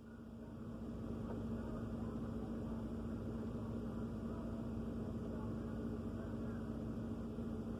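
Refrigerator running with a steady hum and one low steady tone, swelling in over about the first second and then holding even.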